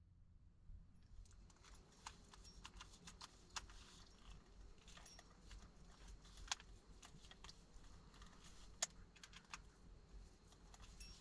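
Faint, irregular light clicks and ticks over near silence, starting about a second in.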